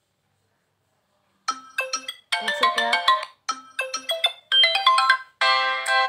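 Stock ringtone previews on a Tecno Pova 5G, one short bright chiming tune after another. Each is cut off abruptly after about a second as the next ringtone in the list is tapped. They begin about a second and a half in.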